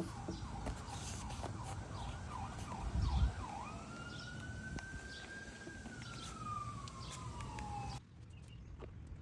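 A siren: a fast up-and-down yelp for a few seconds, then one slow rising and falling wail that cuts off abruptly about eight seconds in, over a steady low rumble, with a dull thump about three seconds in.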